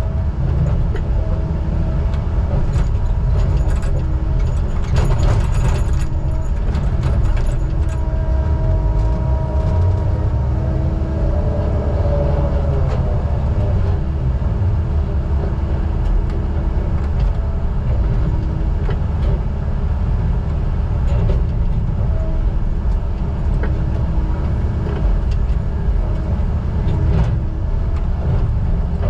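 Heavy diesel logging machinery running steadily under load: a deep engine rumble with a hum of steady pitched tones that swell and bend about twelve seconds in, and scattered clanks.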